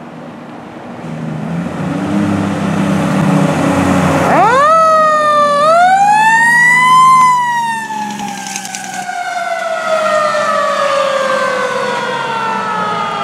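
Fire engine coming closer with its diesel engine rumbling. About four seconds in, its siren winds up sharply, dips briefly and climbs to a peak. It then winds slowly down in pitch as the truck passes and pulls away.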